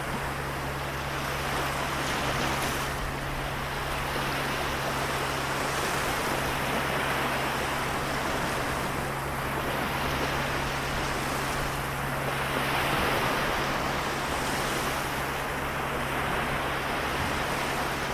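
Sea waves washing onto the shore, swelling and easing every few seconds, over a steady low hum.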